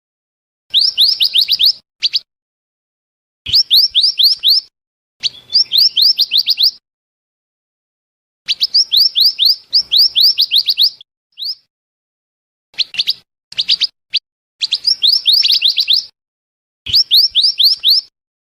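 Recorded lure call of a minivet (mantenan): bursts of five to seven quick, high, sweeping whistled notes, repeated every couple of seconds with clean silences between.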